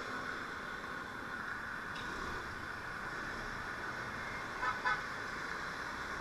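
Steady road traffic hum with a short double horn toot about four and a half seconds in.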